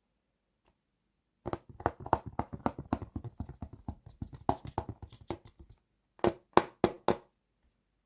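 Miniature plastic toy kitchen pieces handled and knocked together: a quick run of small clicks and taps, about five a second, then four sharper separate clacks near the end.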